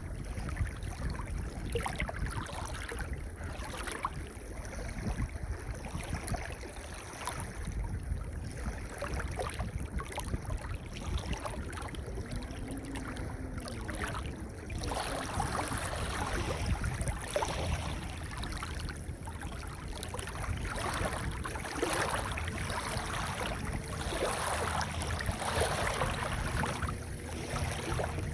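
Gentle ocean waves washing in and out over a pebble beach, over a steady low rumble. The wash grows stronger about halfway through, with repeated rushes of water over the stones.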